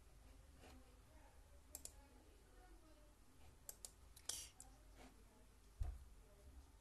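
Sharp small clicks over faint room tone: two close together about two seconds in, a cluster of four or five around the middle, and a click with a dull thump near the end, the loudest of them.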